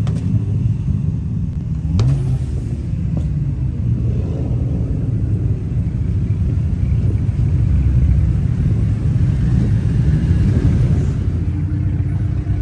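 Car exhausts rumbling at close range, a steady low engine sound, with a brief rise in revs about two seconds in.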